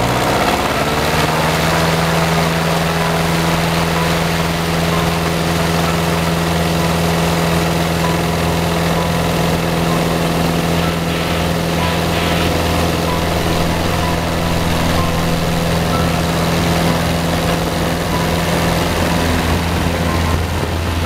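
Light tow plane's piston engine and propeller rising to full takeoff power in the first second or so, then running steadily at full power through the takeoff roll with a glider on tow.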